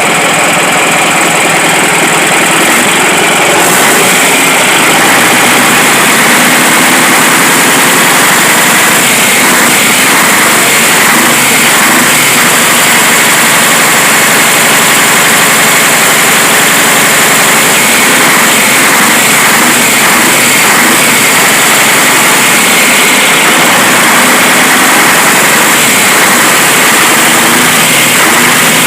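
Scania LK 141's 14-litre V8 diesel engine running steadily and loudly, on its first run after standing unused for five or six months.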